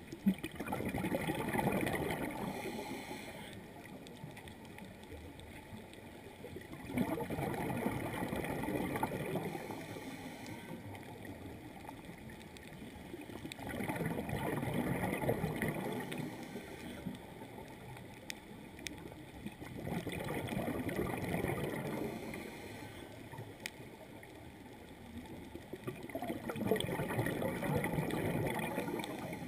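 A scuba diver's exhaled bubbles gurgling out of the regulator in five bursts of about three seconds each, one every six or seven seconds in a steady breathing rhythm, with a soft underwater hiss between breaths.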